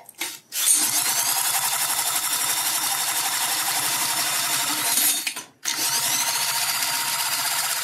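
Electric power tool motor spinning up with a rising whine and running steadily for about four and a half seconds. It cuts off, then spins up again after a short pause.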